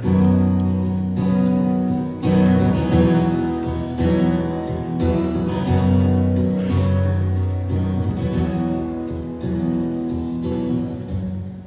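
Acoustic guitar strumming slow chords, a new strum about once a second, each left to ring.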